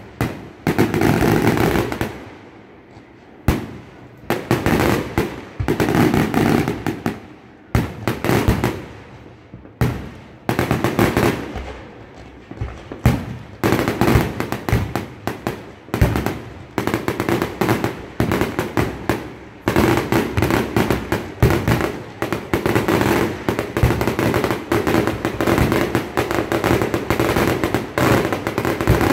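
Aerial firework shells bursting in quick succession, sharp bangs and booms with crackle between them. There are short lulls in the first part, then the bursts come almost without a break in the second half.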